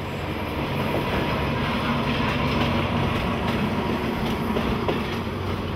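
Passenger train running along the tracks: a steady noise with a low hum and a few faint clicks.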